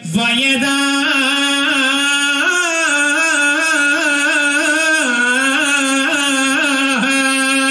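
A man singing a slow, ornamented melody unaccompanied, holding long notes that waver and slide in pitch, with a brief break and upward slide right at the start.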